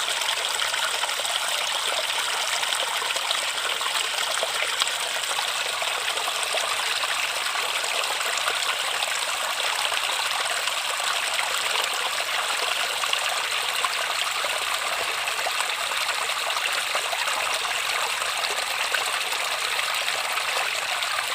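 River water flowing steadily over rocks, a constant rushing babble with many small splashes and trickles.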